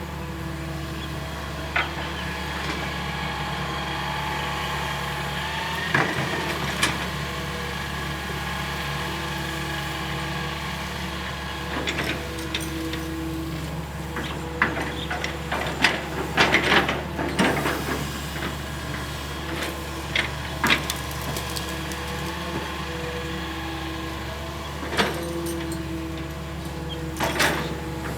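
Hitachi EX220-1 long-reach excavator working: the diesel engine runs steadily under a hydraulic whine that rises and falls as the boom and bucket move. Scattered sharp knocks and clatter come in bunches, the busiest stretch about halfway through and more near the end.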